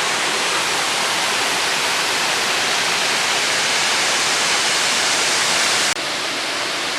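Waterfall roaring: a loud, steady rush of falling water. It cuts off for an instant about six seconds in and comes back slightly duller.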